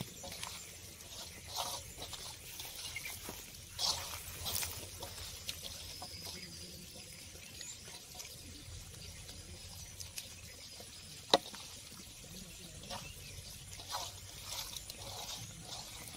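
Water trickling and splashing, with scattered small knocks and a single sharp click about eleven seconds in.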